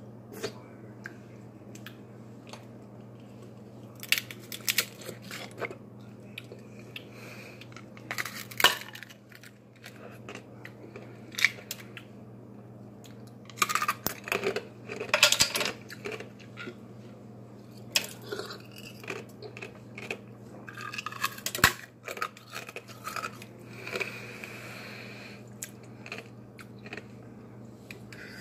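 A clear plastic container of frozen ice being handled and worked at, with irregular clicks, cracks and crunches of ice against plastic and of ice being bitten and chewed.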